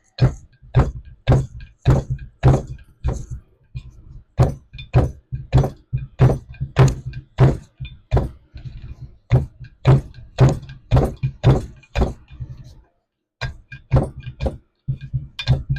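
Repeated hammer blows on a steel trailer wheel hub, about two a second, with a short pause near the end, as the old grease seal is knocked out to be thrown away.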